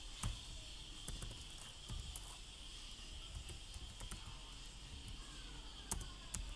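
Typing on a computer keyboard: irregular light key clicks over a steady faint high-pitched hiss.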